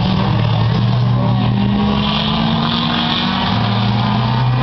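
Engines of several small race cars running at speed around a paved oval track, a steady loud drone whose pitch holds nearly level.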